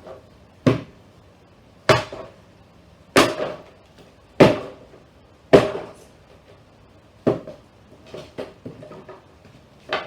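Heavy hammer blows knocking apart the nailed particle-board cabinet of a 1970s console stereo, six loud strikes about one every second with lighter knocks and rattles after them.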